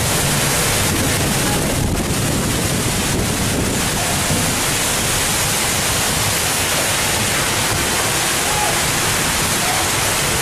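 Heavy rain pouring and strong wind lashing trees in a thunderstorm: a loud, steady rushing hiss.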